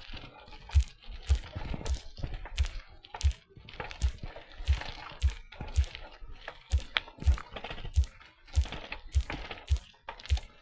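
Footsteps of a person walking at a steady pace, each step a dull thump, about three steps every two seconds, with light scuffing between them.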